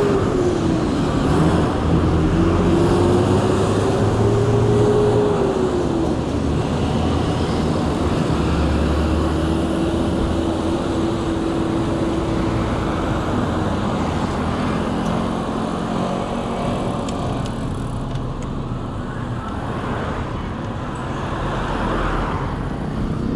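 Road traffic on a busy street: a nearby vehicle engine drones with a steady tone that rises and falls over the first few seconds, then holds lower and fades out about halfway through, over a constant traffic rumble.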